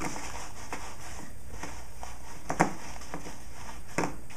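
Lining material being folded and pressed into a plastic shipping container by hand: faint rustling, with a light knock about two and a half seconds in and another near the end.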